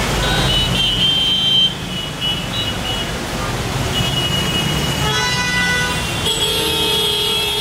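Jammed road traffic: a steady rumble of engines with car horns honking on and off. A held horn cuts off sharply under two seconds in, and several horns sound over each other in the last few seconds.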